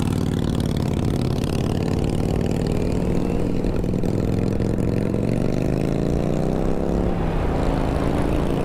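Motorcycle engine accelerating away from a stop, its pitch climbing steadily, with a gear change about seven seconds in before it climbs again.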